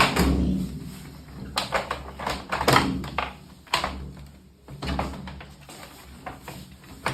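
Irregular knocks and clatter of parts and tools being handled while the water inlet valve of an automatic washing machine is changed, over a low steady hum.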